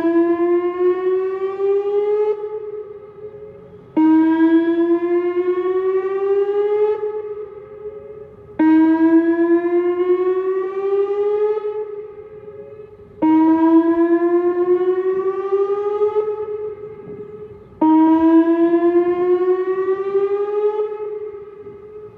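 Whelen WPS-2909 electronic outdoor warning siren sounding its 435 Hz tone during a test. It swells suddenly loud about every four and a half seconds as the rotating head turns toward the listener, each pass rising slightly in pitch and then fading away.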